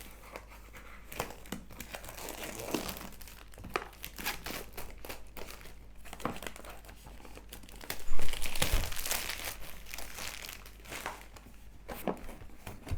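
Packaging being opened by hand: irregular crinkling, rustling and tearing, louder for a couple of seconds about two-thirds of the way in.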